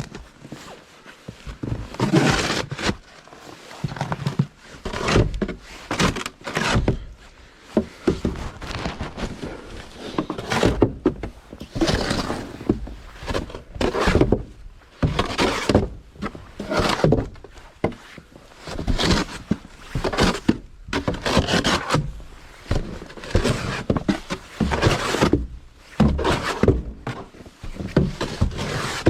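Snow shovel working snow: repeated scraping and thudding strokes, about one every second or two.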